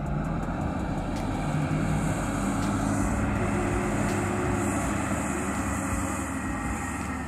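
Diesel engines of a farm tractor and a wheel loader running steadily together: a continuous engine drone with a shifting pitch.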